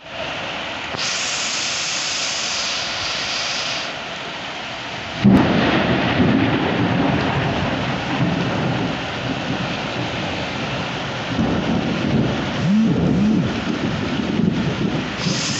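Heavy downpour hissing steadily on tiled and sheet-metal roofs during a thunderstorm. About five seconds in a sudden loud thunderclap breaks in, followed by low rolling rumble that swells again near the end.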